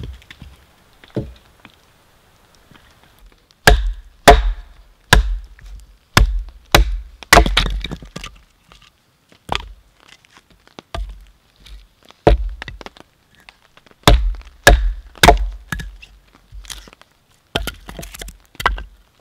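Blows splitting dense, dry hardwood into firewood: sharp wooden knocks and cracks, coming in two runs of about a dozen blows each with a short pause between.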